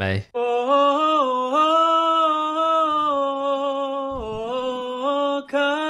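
Men singing a cappella in long held notes. The pitch steps up about a second in, drops briefly around four seconds, and rises again near the end.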